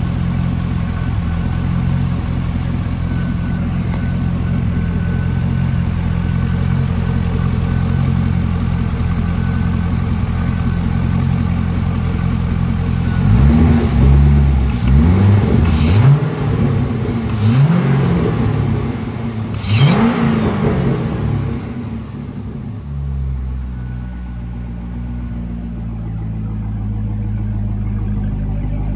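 A 2007 Corvette C6's 6.0-litre LS2 V8 idling steadily, then revved in about four quick blips of the throttle around the middle, each rising and falling in pitch, before it settles back to idle.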